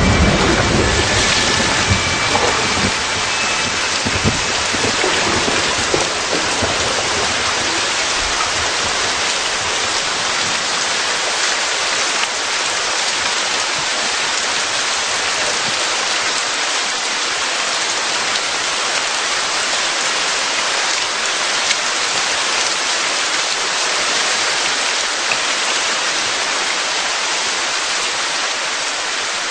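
Steady rain falling, a dense even hiss. A low rumble in the first several seconds dies away.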